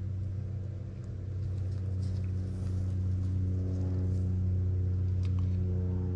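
A steady low hum that grows fuller about halfway through, with a few faint small clicks.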